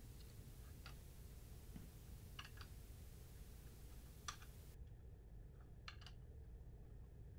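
Near silence with a few faint metallic ticks, scattered a second or two apart, from a 3/16 Allen key working the screws out of a telescope mount's VersaPlate.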